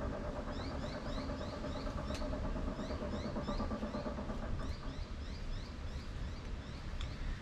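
A steady low hum of an idling engine. Short rising bird chirps repeat several times a second over it.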